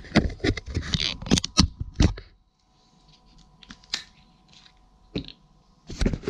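Thin plastic water bottle crinkling and crackling as it is gripped and squeezed in the hand: a dense run of sharp crackles for about two seconds, a short lull with a few scattered clicks, then another loud burst of crackling near the end.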